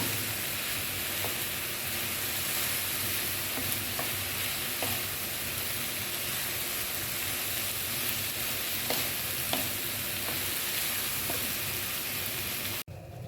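Soya beans frying in a pan, sizzling steadily, with a spatula scraping and clicking against the pan now and then as they are stirred. The sizzling cuts off suddenly near the end.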